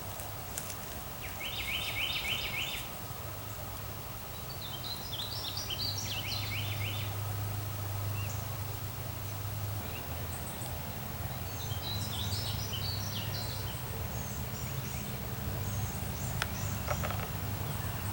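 Birds singing outdoors in short phrases of rapid repeated notes, three or four times, over a steady low hum, with a couple of sharp clicks near the end.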